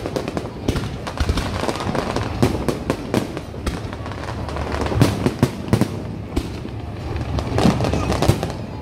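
Aerial fireworks going off in a rapid, continuous barrage of bangs and crackles.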